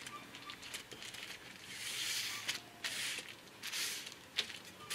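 Rustling and a few light clicks from hands handling piston rings and a piston.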